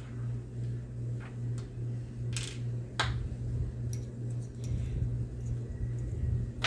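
A few sharp clicks and clinks of small RC car parts and tools being handled, over a steady low hum.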